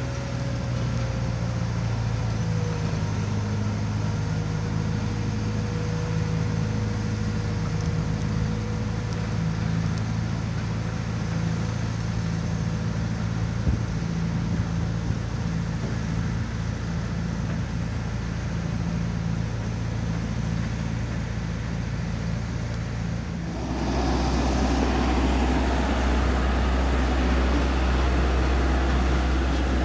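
Diesel engines of heavy road-building machinery, a road roller and an excavator, running with a steady hum. About 23 seconds in, this gives way abruptly to a louder, deeper rumble from a steel-drum road roller up close.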